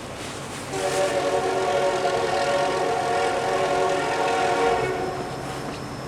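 Air horn of a CN SD75I locomotive blowing one long blast, starting just under a second in and lasting about four seconds, over the rumble of the train. The horn is plugged with snow and sounds sick.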